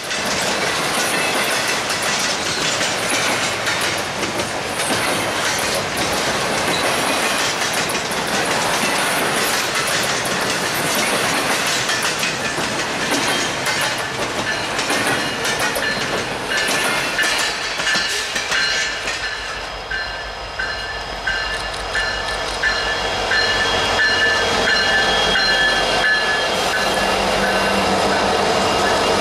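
Double-stack freight train passing close: a steady rumble and clatter of steel wheels on the rails. Past the middle, a high wheel squeal sets in. In the last couple of seconds, the low hum of a diesel locomotive's engine comes up as it draws alongside.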